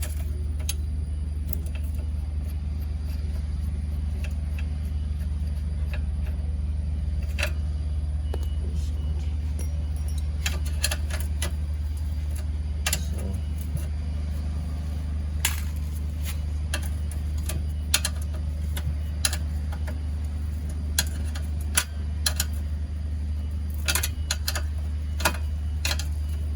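Scattered sharp metallic clicks and clinks of a spanner working on the bolts of a petrol generator's engine mountings as they are loosened, over a steady low hum.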